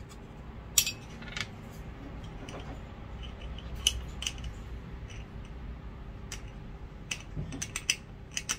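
A metal teaspoon clicking and scraping against a small glass spice jar as turmeric powder is scooped out, in scattered light clicks with a quick run of them near the end.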